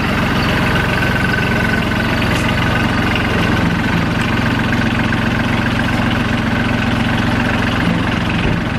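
Branson 2400H compact tractor's diesel engine idling steadily.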